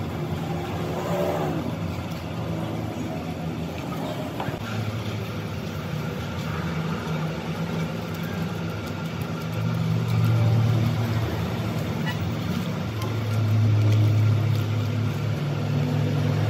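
A low, steady mechanical hum that swells louder twice, about ten seconds in and again a few seconds later.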